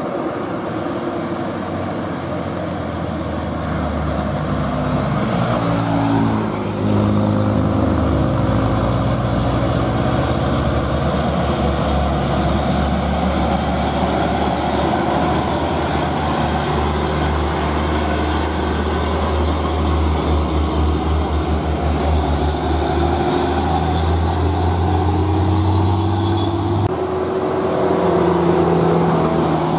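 Diesel engines of Hino trucks running as they drive past close by, a steady low engine note with noise of the road. The engine note shifts in pitch about six seconds in, and the sound changes abruptly near the end.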